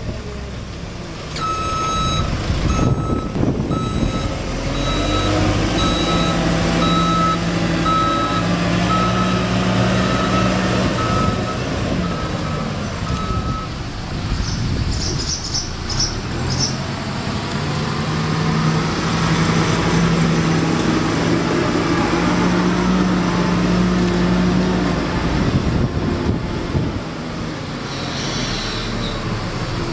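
JCB telehandler's diesel engine running and revving up and down as it moves round bales, with its reversing alarm beeping steadily, about one and a half beeps a second, which stops about halfway through.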